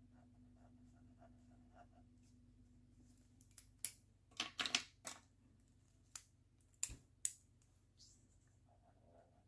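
Plastic pens clicking and clattering as one is set down and another picked up: a quick cluster of sharp clicks a few seconds in, then three more single clicks. Before that, faint scratching of a pen writing on paper.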